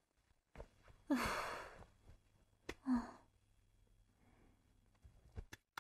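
A woman sighing: a long breathy sigh about a second in and a shorter one near three seconds, with a few soft knocks around them.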